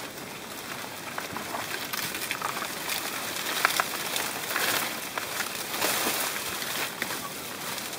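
Dry banana leaves and foliage rustling and crackling as a bunch of bananas is pulled from the plant and carried through it, with a few short sharp snaps.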